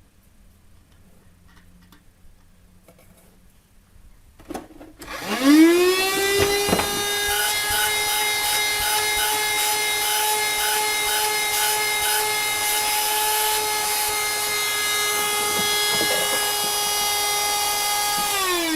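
Battery-powered YD610 wet-and-dry car vacuum cleaner switched on about five seconds in: its motor whine rises quickly to speed, then runs steadily at a high pitch and starts to wind down right at the end. Faint handling clicks come before it starts.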